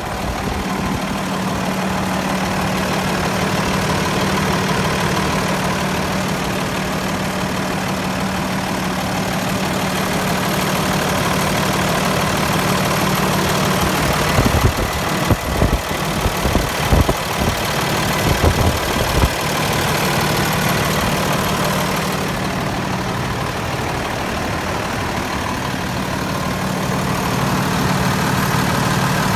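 Freightliner M2 106 truck's diesel engine idling steadily. About halfway through, a run of irregular low thumps and rumbles breaks over the idle for several seconds.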